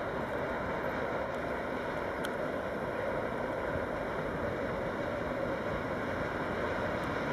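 Steady engine and running noise of a red DB diesel shunting locomotive moving past with tank wagons, an even rumble with no distinct tones.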